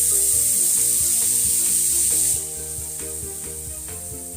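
A wet mixture of milk, jaggery and ground green gram hitting hot ghee in a pan and sizzling loudly. The sizzle drops off about two seconds in and carries on more quietly as it is stirred.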